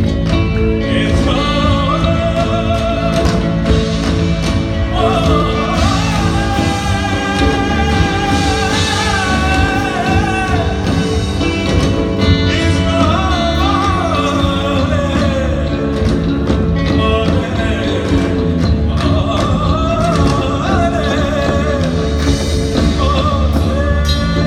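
Indian fusion rock band playing live and loud: a wavering sung melody over steady bass, drums and guitar.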